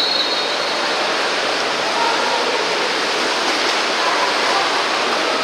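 Steady rushing splash of water polo players swimming and churning the pool water, an even noise with no single event standing out.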